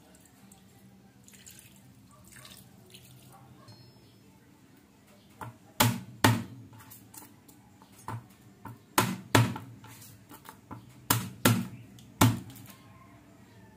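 Faint pouring of liquid into a metal wok, then a chef's knife chopping garlic on a cutting board: about eight sharp knocks at uneven intervals, starting about six seconds in.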